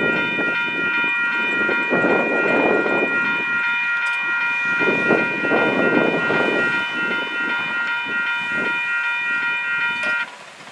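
Railroad crossing signal bells ringing steadily as the gates rise, then cutting off just before the end once the gates are fully up. Under the bells there is an uneven rumbling noise that rises and falls.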